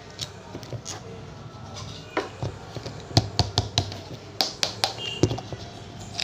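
Hands opening a plastic supplement tub and its packaging: irregular sharp clicks and taps, bunched about three seconds in and again around five seconds in.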